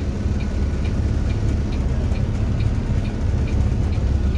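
Vehicle engine and road rumble heard from inside the cab, a steady low drone, with a light ticking about four times a second.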